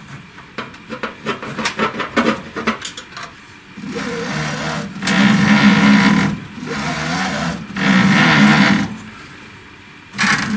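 Laser cutter's X-axis carriage pushed back and forth by hand, its toothed belt running over the drive pulley and turning the stepper motor: after a few light clicks, four whirring passes, alternately quieter and louder. It runs smooth one way and not the other, a sign the belt is not yet fully engaged with the pulley teeth.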